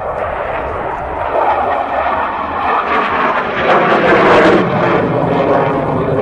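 Saab JAS 39 Gripen fighter jet's Volvo RM12 turbofan, a loud rushing roar overhead during a display pass, swelling to its loudest a little past the middle and then easing off.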